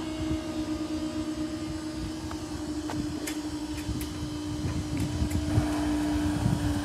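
Level crossing barrier mechanism humming steadily as its motor raises the barrier boom to upright, with a few light clicks about three to four seconds in and a low rumble of wind on the microphone.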